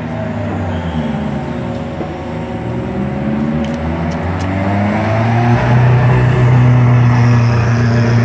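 GT race car engine running at a low, steady pace along the pit lane, growing louder from about five seconds in as the car draws level.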